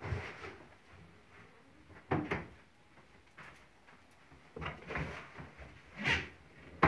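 Convertible armchair being pulled open and its fold-out tabletop swung up into a dining table: a series of separate knocks and scrapes from the mechanism and panels, about a second or two apart, ending in a sharp click.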